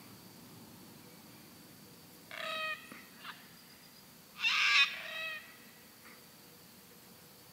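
Sulphur-crested cockatoo calling: one call a little over two seconds in and a short note, then a louder call about four and a half seconds in, followed by a softer one.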